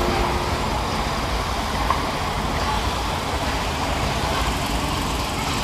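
Steady road traffic noise: a mix of passing vehicles with a low rumble, without distinct events.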